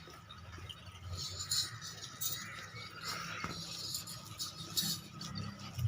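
Light, scattered metallic clinking and rattling over a faint low hum.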